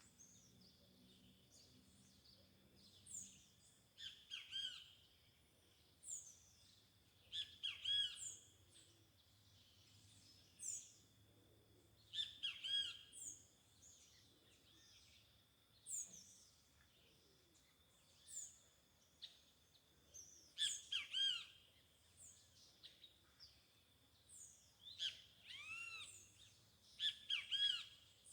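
Birds calling and chirping in short bursts of quick, sharply falling notes every few seconds, over a faint steady high-pitched tone.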